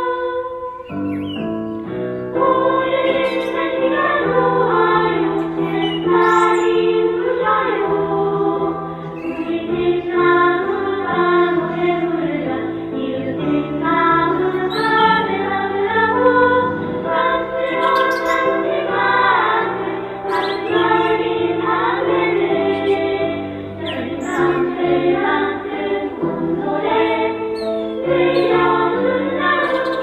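A children's choir singing a Korean children's song over instrumental accompaniment.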